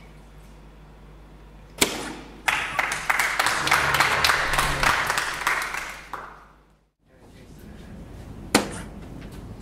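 Soft-tip darts striking an electronic dartboard, with a sharp impact about two seconds in and another near the end. Between them comes a few seconds of loud, noisy clattering that fades out.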